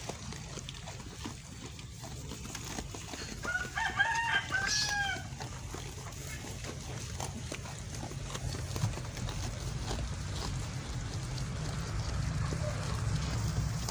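A rooster crows once, about four seconds in, over the steady sound of sheep munching grass and hay.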